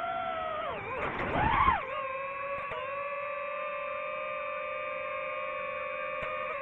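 DJI FPV drone's motors and propellers whining. About a second and a half in, the pitch dips and then surges with a loud rush of air, then settles into a steady, even whine.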